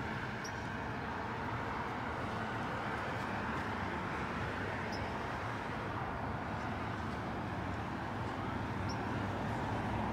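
Steady outdoor city background noise of distant road traffic, with three faint, short, high chirps: about half a second in, near the middle, and near the end.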